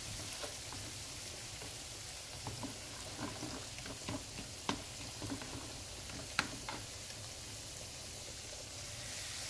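Batter fritters frying in hot oil in a frying pan: a steady sizzle with scattered crackles, and two sharper pops a little before and after the middle.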